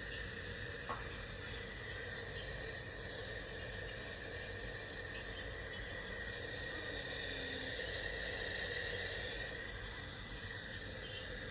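Steady hiss with a faint constant hum, and a small tick about a second in.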